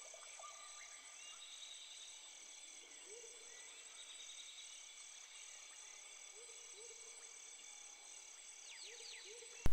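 Faint woodland ambience: an insect's high, evenly pulsing trill, about three pulses a second, with scattered short bird chirps.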